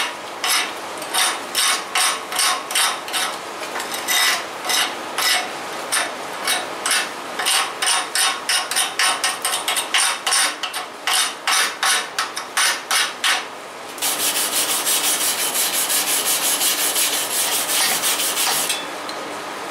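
Homemade chipping hammer, a chisel welded to a pipe handle, tapping and scraping slag off a 6011 stick-weld bead on steel plate in quick repeated strikes for about thirteen seconds. Then a steady back-and-forth scrubbing across the bead for about five seconds, which stops shortly before the end.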